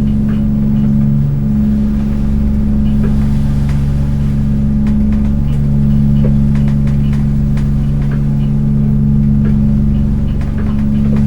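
Fishing boat's inboard engine idling steadily while moored, a deep even hum with faint knocks and clicks over it.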